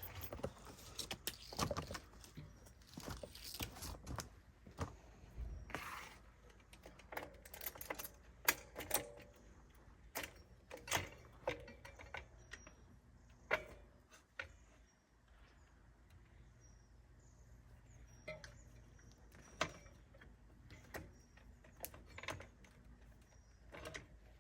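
Scattered small metallic clicks, clinks and light knocks: the steel axle spacers and the hub motor's axle being handled and pushed against the bicycle frame's rear dropouts as the wheel is fitted. The clinks are busiest in the first half, thin out briefly around the middle, then pick up again.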